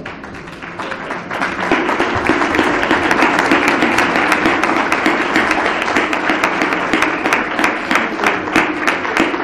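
Audience applauding, swelling about a second in and then continuing as a steady patter of many hand claps.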